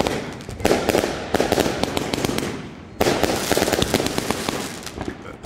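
Vuurwerkmania Tournament Box firework cake firing its shots: a sharp report a little under a second in, another soon after, and a third at about three seconds. Each shot is followed by a dense spray of crackling that fades away.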